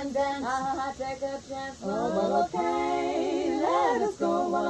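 Three women singing a cappella in close harmony: held notes that slide between pitches, broken by short pauses between phrases.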